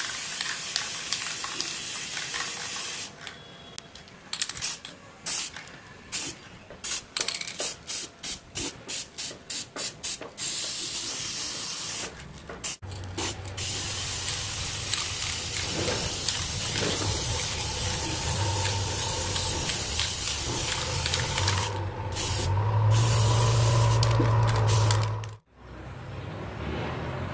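Aerosol spray-paint can hissing as black paint goes onto an MDF speaker box: a long spray, then a quick run of about a dozen short bursts, then longer steady spraying. A low steady hum joins under the spraying about halfway through.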